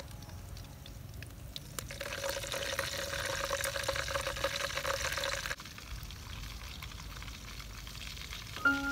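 Hot oil sizzling and crackling in a wok as fried birds are lifted out with metal tongs, louder from about two seconds in. It cuts off abruptly a little past halfway, leaving a quieter simmer, and a light mallet-percussion melody begins at the very end.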